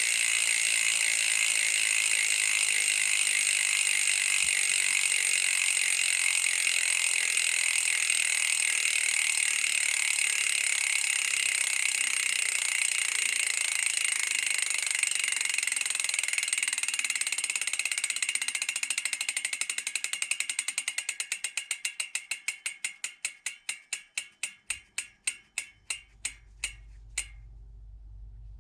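Bicycle rear hub freewheeling, its freehub pawls ratcheting in a fast, high, continuous buzz. From about 18 s in the buzz slows into separate clicks that grow fainter and further apart as the wheel spins down, stopping about 27 s in.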